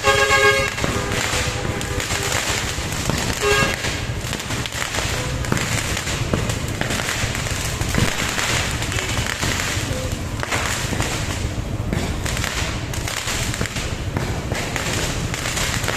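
Fireworks and firecrackers going off continuously in dense, rapid crackling pops. A short pitched tone sounds right at the start and again about three and a half seconds in.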